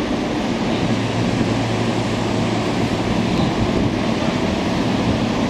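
Semboku Rapid Railway 7000-series electric train rolling slowly into the platform and drawing to a stop, a steady rumbling noise with a low hum that dies away about three seconds in.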